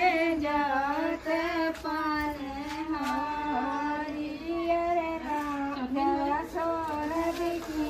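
A high voice singing one continuous, wavering melody.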